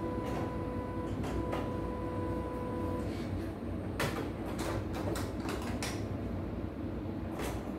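Hands working on a portable home embroidery machine: a run of sharp clicks and knocks from about halfway through and again near the end, over a steady low hum, with a thin steady whine during the first three seconds.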